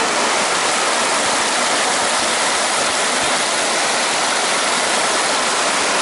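Shallow creek water running over rocks and a small cascade: a steady, even rush of water with no breaks.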